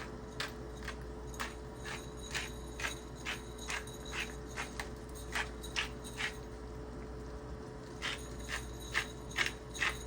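Black peppercorns being ground from a pepper grinder into a skillet: a run of sharp, slightly ringing clicks about two a second, a pause just past the middle, then more clicks.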